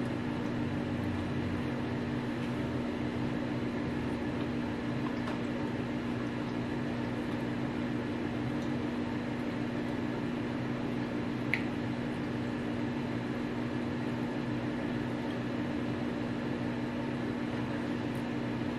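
Steady low room hum with two low tones held throughout, and one short click about halfway through; no chewing stands out above it.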